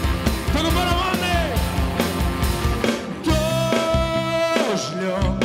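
Live worship band playing a rock-style song on drum kit, bass guitar, keyboard and electric guitar. A melody note is held for over a second in the middle, and the drum beat drops out briefly near the end.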